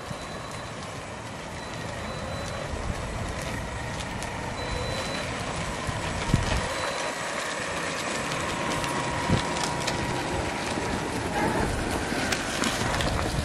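RC monster truck towing a loaded wagon stroller over a gravel path: steady crunching and rolling of tyres and wagon wheels on gravel, with a faint steady motor whine and a couple of short knocks about six and nine seconds in.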